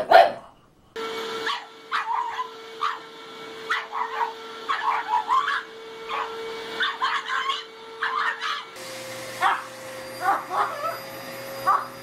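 Vacuum cleaner motor running with a steady hum while a pug barks at it over and over in short bursts. About three-quarters of the way through, the hum changes to a different vacuum's, and the barking goes on. A brief loud burst comes right at the start.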